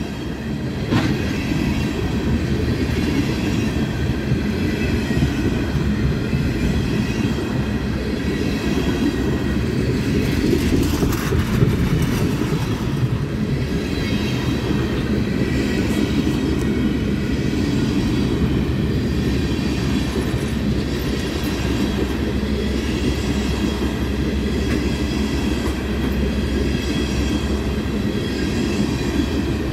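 A freight train of tank cars rolling steadily past close by: a continuous rumble of steel wheels on the rails, with faint high-pitched tones above it and a couple of brief sharp knocks.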